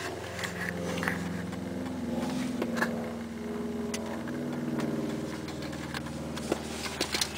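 A steady engine drone whose pitch drifts slightly up and back down, with a few light clicks.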